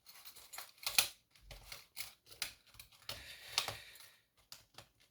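Irregular small clicks and taps from handling a gutted pin-tumbler lock and its tools while trying to work stuck springs out of the pin chambers; the sharpest taps come about a second in and again past halfway.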